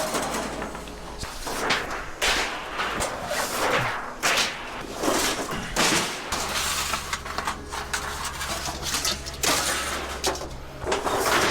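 Scrap metal being handled and sorted: a run of irregular clanks, knocks and scraping rattles as pieces are moved and tossed, with a low steady hum coming in about halfway through and stopping near the end.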